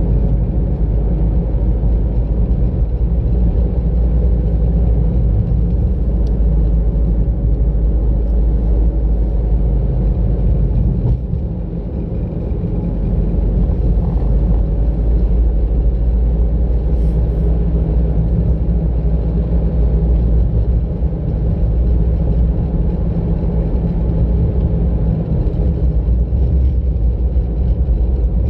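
Steady low rumble of a car's engine and tyres while driving on a road, dipping briefly about eleven seconds in.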